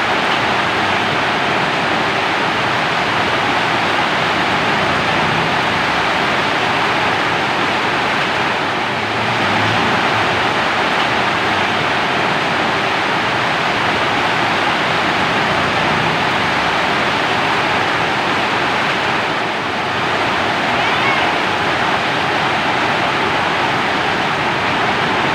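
Steady heavy rainfall, a dense even hiss with no breaks.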